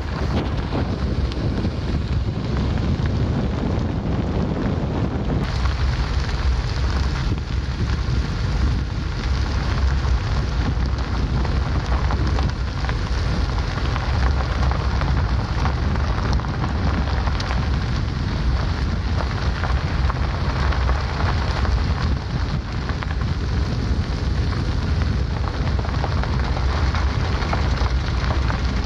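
Vehicle driving along an unpaved dirt road: a steady low rumble with a crackly hiss of tyres rolling on the loose gravel surface.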